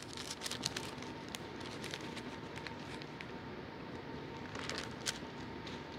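Bible pages being turned: faint rustling with scattered small crackles and ticks, a few louder ones just before the end.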